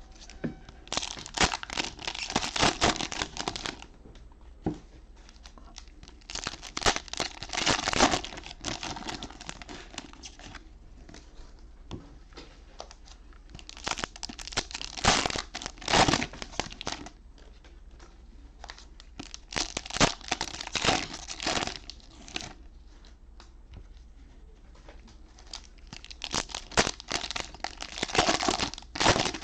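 Cellophane wrappers of trading card cello packs being torn open and crinkled by hand, in about five separate spells of crackling with quieter handling between.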